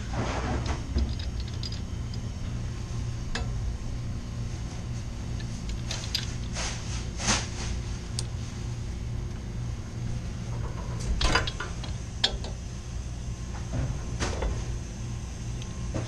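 Metal clinks, knocks and scrapes of a pipe wrench being set on and worked against the brass Y-strainer cap of a water line, scattered irregularly, over a steady low hum.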